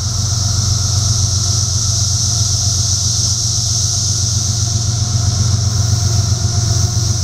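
Diesel locomotives of a freight train approaching down the track, running with a steady low drone, under a steady high-pitched hiss.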